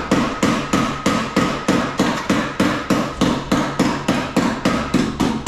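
A hammer striking the steel sheet metal of a car body panel, in steady blows about three a second, each with a metallic ring.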